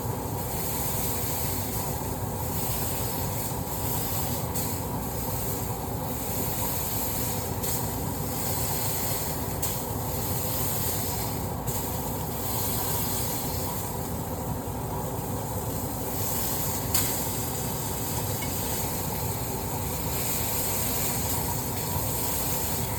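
Burger patties sizzling in a hot frying pan: a steady frying hiss with a few sharp pops of spitting grease.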